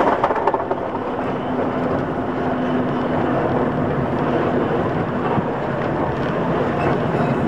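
Vintage electric tram running along its track, heard from on board: a steady rumble of wheels on rails with a low hum. Louder for a moment at the very start as another tram passes alongside.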